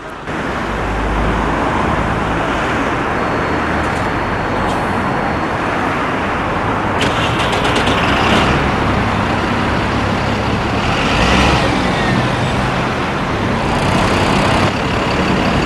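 A heavy road vehicle's engine running close by, with steady traffic noise and a quick run of clicks about seven seconds in.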